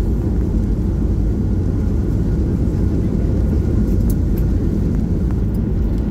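Cabin noise in a Boeing 737-800 rolling out on the runway just after touchdown with its spoilers up: a steady low rumble from the engines and the landing gear running over the pavement.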